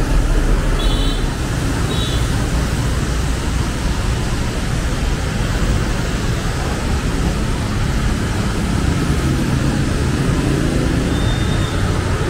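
Busy street traffic on a wet road: a steady wash of engines and tyres. Two short high beeps come about a second in and again a second later.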